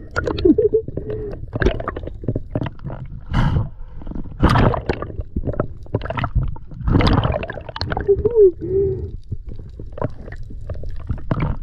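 Water gurgling and splashing against a diver's action camera as it moves at and just under the sea surface, in irregular surges every second or so with a few brief low warbling gurgles.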